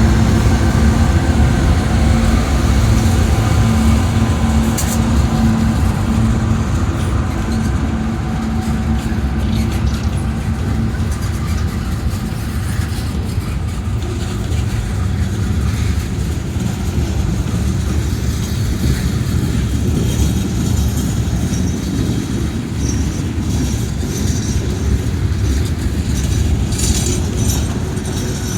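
Freight train passing close by: a continuous low rumble of the train rolling on the rails, with a steady diesel engine note that fades after the first several seconds.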